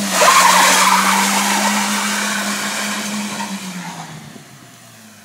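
Small hatchback's engine revved high and held while its tyres spin and skid on wet tarmac. The tyre noise is loudest about a second in; after about three and a half seconds the revs drop and the skid fades away.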